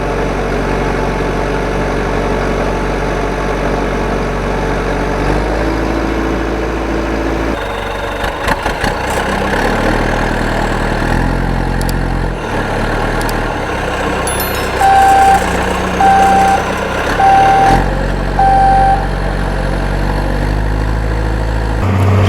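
Truck engine running, its pitch shifting in steps every few seconds, with four short reversing beeps about a second apart in the second half.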